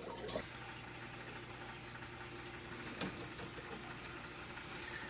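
Faint steady trickle of water from an aquarium waterfall and filter, with a low steady hum under it and a light click about three seconds in.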